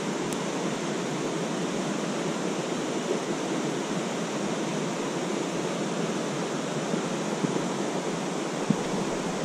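Steady rushing of a creek's flowing water.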